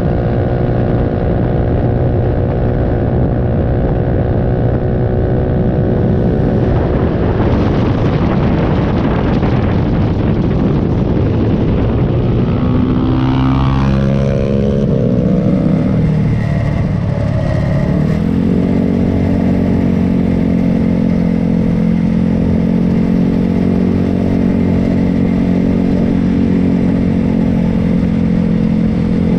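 Small mini-bike motorcycle engines running on a ride: a steady engine note, then a rougher stretch where the pitch shifts up and down in steps, then a rise in pitch that settles into a steady cruising note for the second half.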